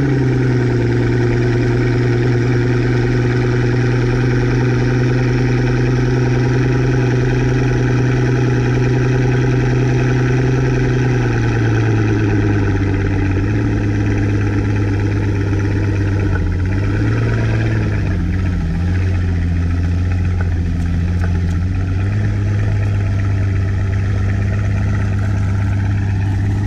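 Pagani Huayra BC's twin-turbo V12 idling right after a cold start, holding a raised, steady fast idle. About eleven seconds in the idle drops to a lower steady note, with a brief wavering in pitch a few seconds later.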